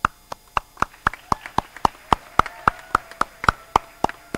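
Hand clapping: distinct, evenly spaced claps at about four a second, from a few people near the microphone.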